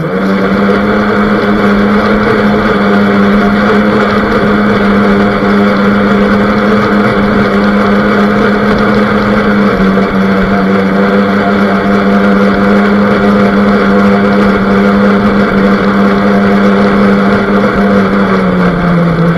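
Radio-controlled boat's motor running steadily at a high pitch, heard close up from a camera mounted on the boat, with water noise from the hull. The pitch drops a little near the end as the throttle eases off.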